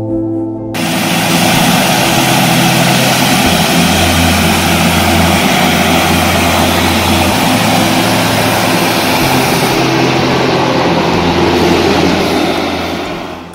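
Piaggio P.180 Avanti's twin pusher turboprop engines running, a loud, steady rush with a low propeller drone. It comes in suddenly about a second in and fades away near the end.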